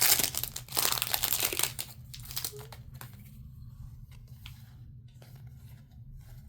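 Foil Yu-Gi-Oh! booster pack being torn open and crinkled, loudest in the first two seconds, followed by faint rustles and small ticks as the cards are handled.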